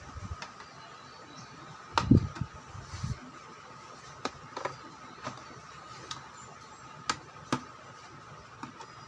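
Scattered clicks and knocks of a plastic speaker casing being handled and its lid fitted back on, with a heavier thump about two seconds in.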